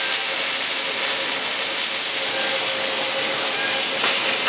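Robotic arc-welding cell at work on a steel motorcycle frame: a steady hiss with a faint steady hum underneath.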